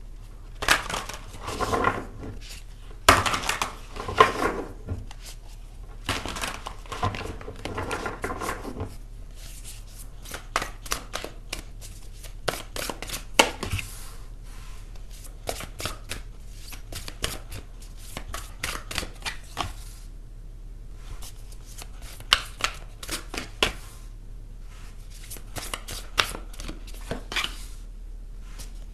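A tarot deck being shuffled and handled by hand: dense rustling bursts for the first nine seconds or so, then a long run of short, sharp card clicks and snaps. A faint steady low hum lies underneath.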